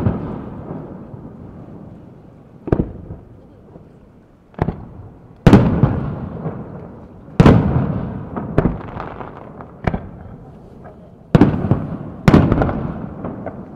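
Aerial firework shells bursting: about eight sharp bangs a second or two apart, each followed by a rolling echo that dies away.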